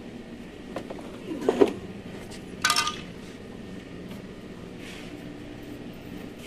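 Metallic clinks and knocks of hand work inside a car door with its trim panel off: a single click, a short clatter about a second and a half in, then a bright ringing metal clink near three seconds.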